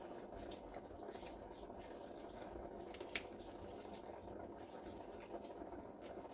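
Lemon half squeezed by a gloved hand over a bowl of raw shrimp: faint juice drips and small wet clicks, with one sharper tick about three seconds in, over a steady low background hum.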